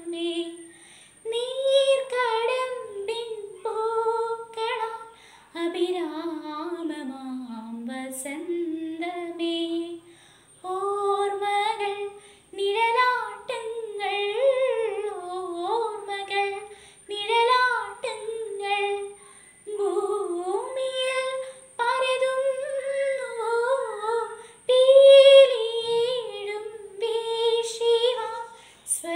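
A girl singing solo and unaccompanied, an ornamented melody in phrases broken by short pauses for breath.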